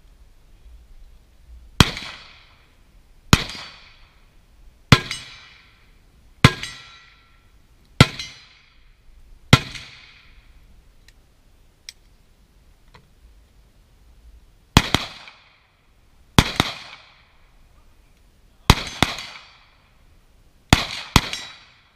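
Carbine shots fired one at a time, about every one and a half seconds, each with a short ringing tail; after a pause of about five seconds the shooting resumes, with some shots coming in quick pairs near the end.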